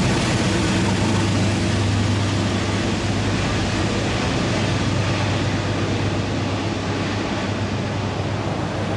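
R62A subway train running on the steel elevated track and bridge as it pulls away: a steady rumble of wheels on rail with a strong low hum, easing off slightly.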